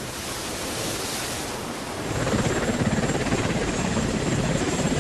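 Wind and sea wash, then from about two seconds in a helicopter comes in louder: low pulsing rotor noise with a thin, steady, high engine whine.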